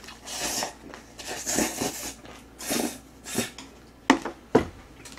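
Noodles slurped from an instant jjajang cup with chopsticks, in four breathy sucking bursts, followed near the end by two sharp clicks.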